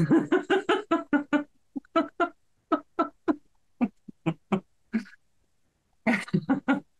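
A woman laughing: a quick string of rhythmic ha-ha pulses, then shorter fits of laughter, and one more burst near the end.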